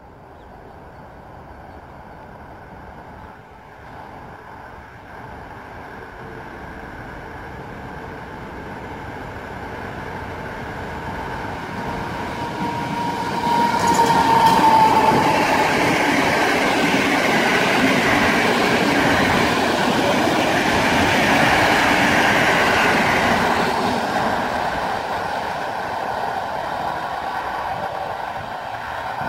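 An EP09 electric locomotive hauling passenger coaches approaches, passes close by and draws away. The rumble of wheels on rail grows steadily, peaks with a brief falling whine as the locomotive goes by about halfway through, holds while the coaches pass, and fades as the train recedes.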